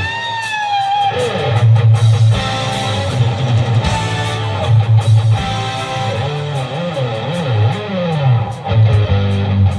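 Electric guitar playing a solo live, with a sustained note bent up and back down at the start and gliding, bending lines after, over a rock band's bass guitar and drums.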